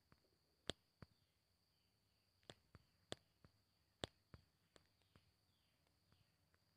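Near silence: faint room tone with a steady thin high-pitched whine and about a dozen scattered, irregular faint clicks.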